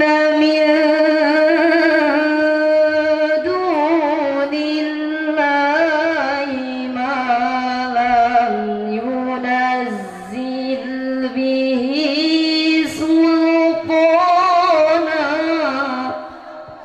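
A woman's solo voice in melodic Arabic recitation, amplified through a handheld microphone, holding long notes with winding ornaments. The line pauses briefly about ten seconds in and ends shortly before the close.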